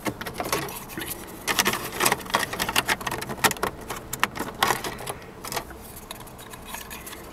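Plastic dashboard trim of a Volvo 240 being handled and pressed into place by hand: a run of irregular clicks and rattles that thins out near the end.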